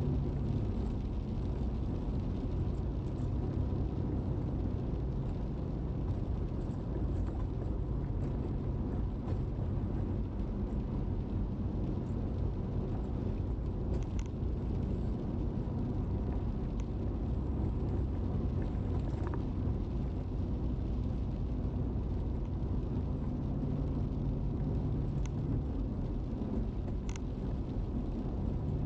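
Car driving on wet asphalt, heard from inside the cabin: a steady low engine drone and tyre rumble, with a few faint clicks.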